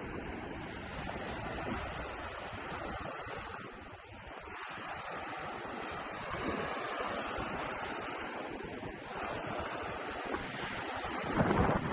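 Ocean surf washing onto a beach in a steady wash that swells and eases. Wind buffets the microphone, in gusts near the end.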